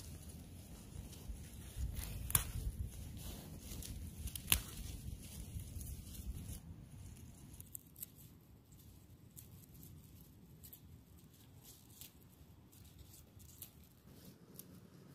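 A knife cutting through plantain leaf stalks, with leaves rustling and stems snapping in a run of sharp clicks. Two clicks, about two seconds in and about four and a half seconds in, are the loudest, and the cutting grows fainter after about seven seconds.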